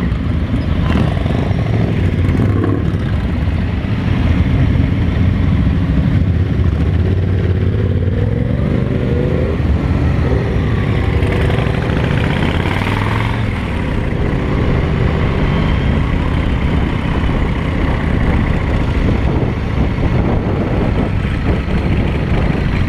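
Cruiser motorcycle engine running under way, heard from the bike itself, with a steady low rumble and the engine note climbing as it accelerates about eight seconds in.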